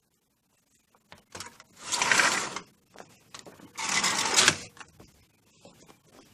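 Two short rasping scrapes about two seconds apart, each lasting under a second, with a few light clicks before and after.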